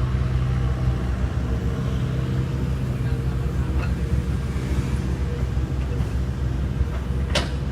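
Kobelco SK75UR excavator's diesel engine running steadily at working speed, with a sharp knock near the end.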